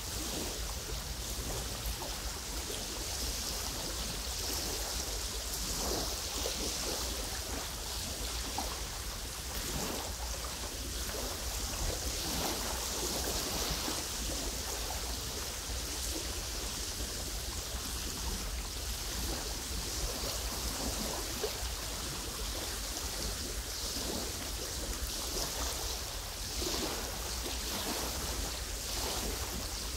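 Small wind-driven waves lapping over a pebble lakeshore: a steady watery wash that swells and eases every few seconds, with soft splashes scattered through it, over a low rumble of wind.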